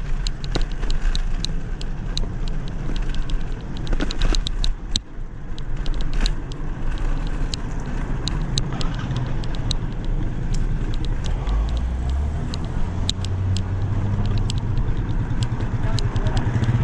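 Riding an old bicycle: rapid, irregular clicking and rattling from the bike, which the rider suspects comes from the rear luggage rack, over steady wind and road rumble. A motor vehicle's low drone comes in over the second half.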